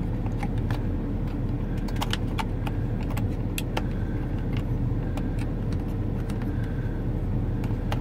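Scattered small plastic clicks and taps as the replacement sunglass-holder button for a Porsche Cayenne's overhead console is handled and fitted against its clip, over a steady low rumble inside the car cabin.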